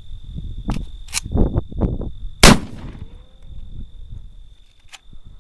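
A single shot from an AK pistol about two and a half seconds in, its report trailing off for a moment afterwards. Two sharp clicks come in the second before the shot, and a steady high insect trill runs underneath.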